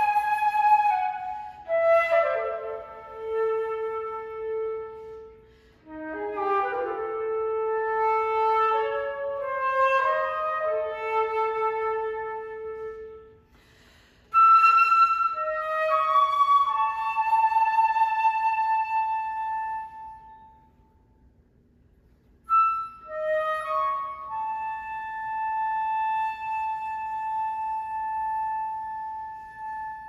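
Unaccompanied concert flute playing a melody in four phrases separated by brief pauses, the last phrase ending on a long held note.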